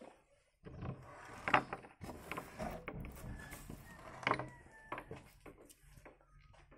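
An old painted metal door being moved open: scraping and rattling with a faint squeak, and two sharp knocks about a second and a half in and again about four seconds in.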